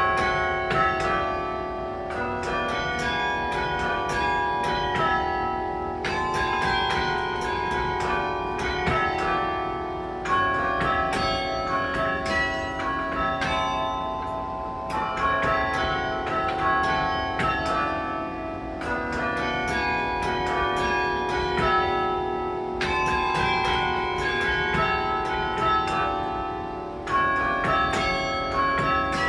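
Carillon bells playing a slow melody over lower chord notes. Many overlapping strikes ring on into one another, in phrases that restart about every four seconds.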